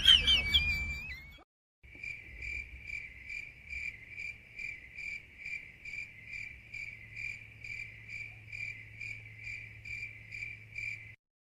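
Crickets chirping in an even, pulsing rhythm of about two chirps a second over a faint low hum: the 'awkward silence' cricket meme sound effect. It begins after a short fading sound and a brief gap.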